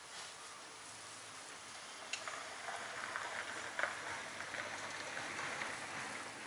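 Fishing reel being wound in: a soft hissing whirr with small irregular clicks. It starts with a click about two seconds in and stops shortly before the end.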